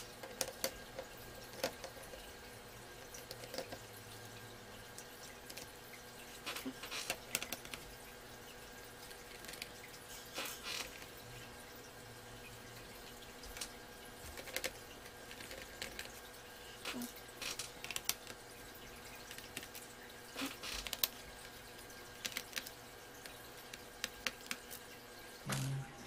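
Irregular small clicks and taps of screws being worked out of the plastic bottom case of an MSI Wind U123 netbook, over a faint steady hum.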